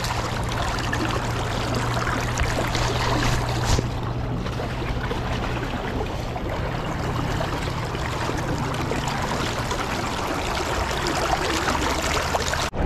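Steady rush of river water splashing around a landing net held in the current while a salmon is netted.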